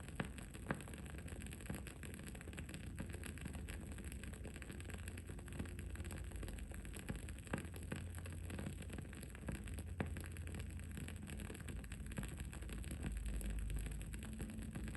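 Wooden candle wick burning with scattered small crackles and pops, a few sharper pops standing out, over a steady low rumble of background noise.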